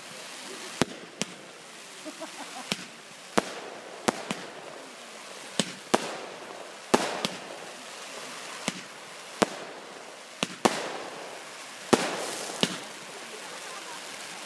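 Fireworks going off: a string of sharp bangs at irregular intervals, roughly one a second, over a steady hiss.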